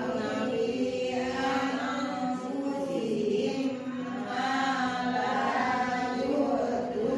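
Melodic Qur'anic recitation by a single voice. The notes are long and drawn out, in held phrases with short breaks between them.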